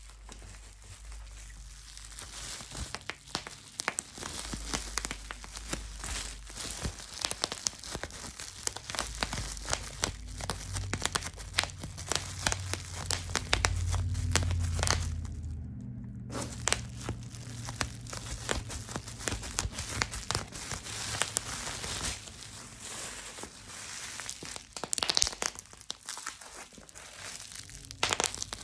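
Plastic headset packaging crinkling and rustling as it is handled right up against the microphone for ASMR: a dense, irregular crackle with a low rumble underneath and a brief pause about halfway through.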